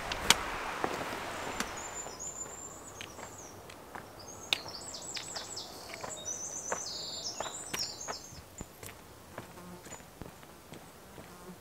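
Outdoor nature ambience in which rapid, high-pitched chirping trills come and go for several seconds in the middle, over scattered light clicks.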